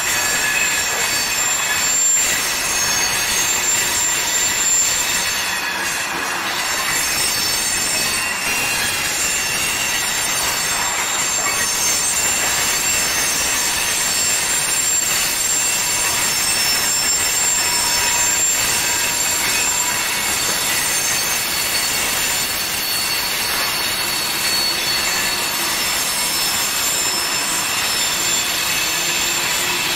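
Freight cars, mostly tank cars, rolling past on a curved track, their wheel flanges squealing steadily in several high pitches at once over the noise of the rolling wheels.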